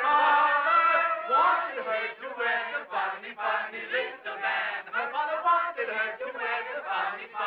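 Men singing a serenade together, on a thin, muffled early-sound-era film soundtrack with no high end.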